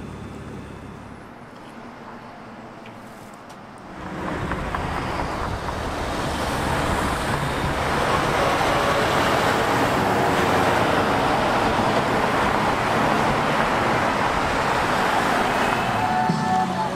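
Street traffic: a low steady hum, then the road noise of passing vehicles that rises sharply about four seconds in, stays loud and eases off near the end.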